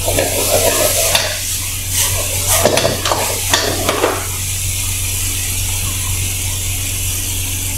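Steel ladle scraping and clattering against a wok as chicken pieces in sauce sizzle over a gas burner, over a steady low hum. The stirring stops about halfway through, leaving the steady sizzle.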